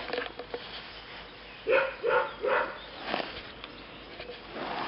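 Labrador retriever puppy barking three short, high barks in quick succession near the middle, with faint rustling and sniffing around them.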